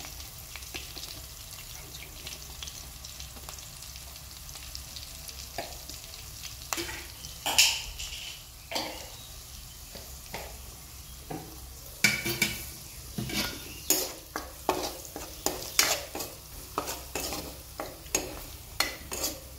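Sliced onions frying in oil in a pan, sizzling steadily. From about seven seconds in, a spatula scrapes and stirs through the pan in separate strokes. The strokes come quickly and repeatedly over the last several seconds.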